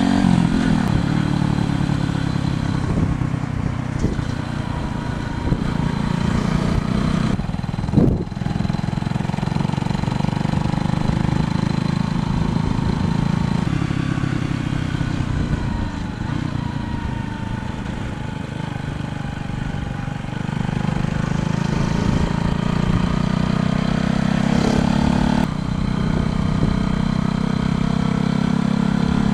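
125cc motorcycle engine running while riding, its pitch stepping up and down several times, with a single sharp knock about eight seconds in.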